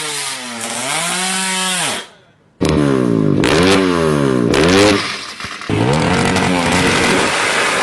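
An engine revving up and falling back several times, its pitch climbing and dropping with each blip of the throttle, with two abrupt breaks. This is an engine that is wrecked ('mesin ambrol').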